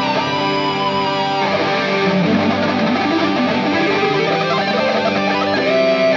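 Background music led by guitar, with held notes at a steady level.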